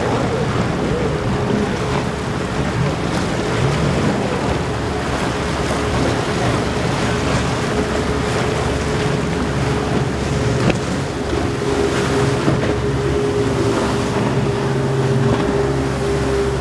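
Regulator center-console boat's outboard engines running at speed with a steady drone, over the hiss of spray and choppy water around the hull and wind on the microphone.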